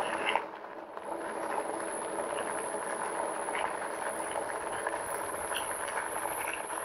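A RadRover fat-tyre electric bike riding along a path: a steady rolling noise from the tyres and rear hub motor, with a faint steady hum and a thin high tone over it.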